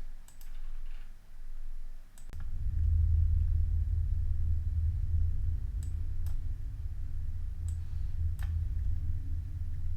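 A couple of mouse clicks, then about two seconds in a deep, steady low rumble starts: the ambience of a sound-design mix playing back, with a few sharp clicks scattered over it.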